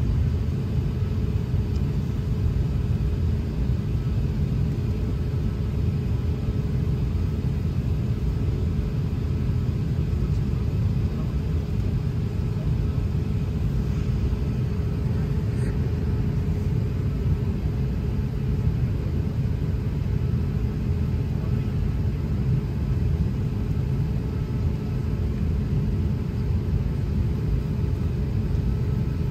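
Jet airliner cabin noise while taxiing: a steady low rumble from the engines and airframe, with a steady hum running through it.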